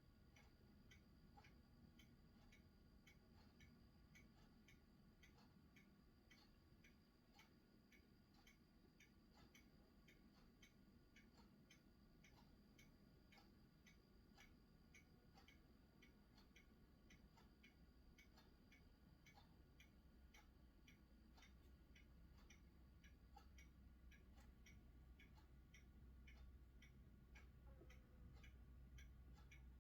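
Near silence with a faint, steady, evenly spaced ticking, a few ticks a second; a low hum grows louder in the last third.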